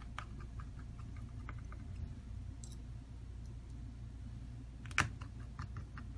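Scattered light clicks and taps of small tools and phone parts being handled on a rubber repair mat, with one sharper click about five seconds in, over a steady low hum.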